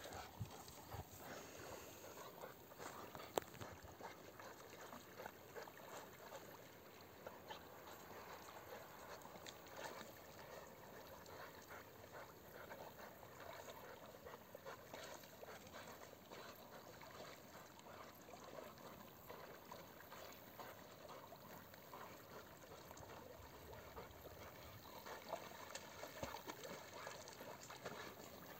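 Near silence: faint outdoor background noise with soft scattered ticks, and a single sharp click about three seconds in.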